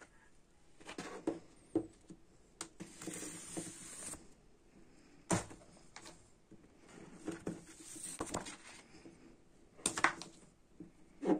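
Hands handling a cardboard LP gatefold sleeve, its paper inner sleeve and booklet: rustling and sliding paper with scattered soft knocks and taps of card. A longer sliding hiss comes about three seconds in, and there is a sharp knock about five seconds in and two more near the end.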